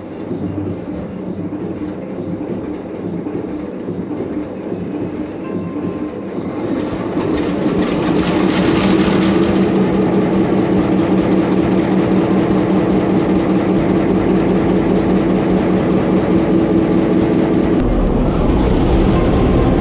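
The locomotive's EMD two-stroke V16 diesel prime mover running, with a steady pulsing beat. It gets louder about seven seconds in, with a brief hiss, then runs on evenly. It is running again after one of its power assemblies was replaced.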